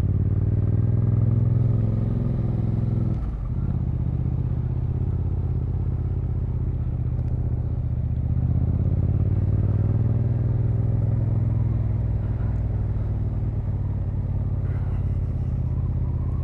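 Motorcycle engine running under way, picked up by an on-board action camera: its pitch climbs, drops sharply at a gear change about three seconds in, then rises again and eases off.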